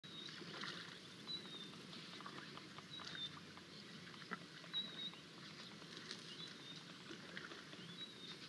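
Natural outdoor ambience: a bird repeats a short, high chirp about every second and a half, over scattered faint ticks and crackles and a low, steady background rumble.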